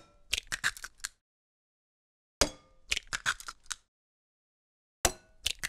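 Three eggs cracked one after another into a bowl. Each is a sharp crack followed by a quick run of crunching shell clicks, about two and a half seconds apart.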